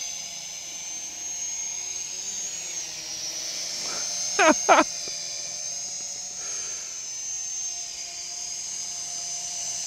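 Small toy quadcopter's propellers whining steadily and high-pitched as it hovers and manoeuvres, the pitch wavering slightly with throttle. Two short pitched sounds come close together about halfway through.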